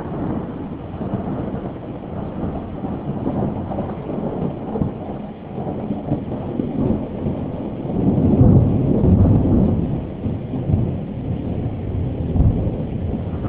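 Long rolling rumble of thunder, deep and continuous, swelling louder about eight seconds in.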